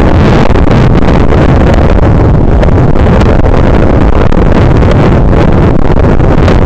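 Loud, steady wind buffeting on a body-worn action camera's microphone, a constant low rumble.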